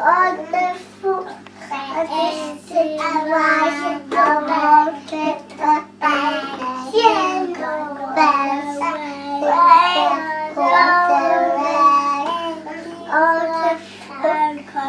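A young girl singing a song in phrases, over a faint steady low hum.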